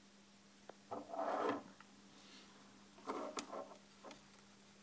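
Quiet handling noise as fishing tackle is moved about on a wooden tabletop: short rubbing rustles with a few light clicks, over a faint steady hum.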